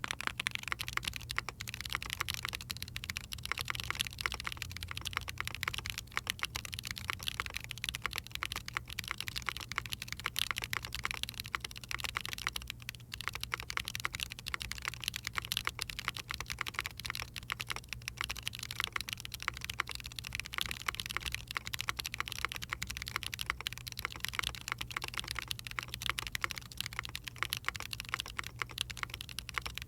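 Continuous fast typing on a mechanical keyboard with factory-lubed Chosfox x JWICK Voyager tactile switches, in a Neson N6-65 with an aluminium plate and JTK Night Sakura keycaps. It is a dense run of keystroke clacks with no pauses.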